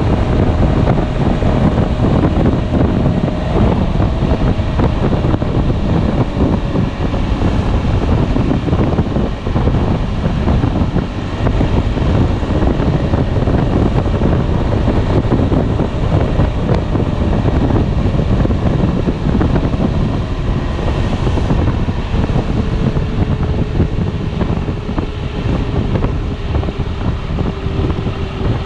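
Heavy wind noise buffeting the microphone on a moving Piaggio Beverly 300 scooter, over the steady running of its single-cylinder engine. A faint whine underneath shifts in pitch now and then.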